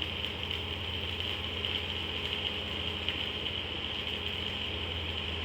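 A red-brick press machine's motor running steadily: an even low hum under a high, constant hiss, with a few faint ticks.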